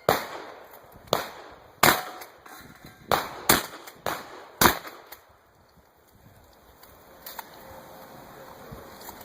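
Winchester 1300 pump-action shotgun firing a rapid string: six sharp reports in under five seconds, each with a short echo, then it goes quiet.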